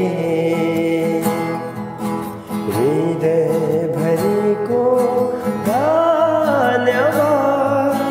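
Nepali Christian worship song: a voice holding long, sliding notes over steady instrumental backing, with a brief dip about two and a half seconds in.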